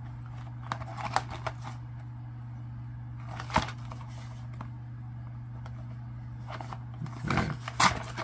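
A cardboard cookie box handled and turned over in the hands: a few brief scrapes and taps about a second in, again midway, and a cluster near the end, over a steady low hum.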